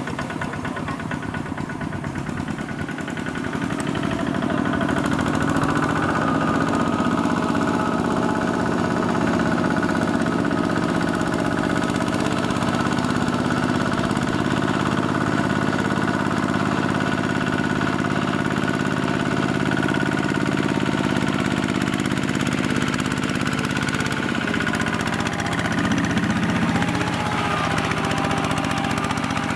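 Kubota mini tractor's single-cylinder diesel engine running steadily. It grows louder about four seconds in, and its pitch drops slightly near the end.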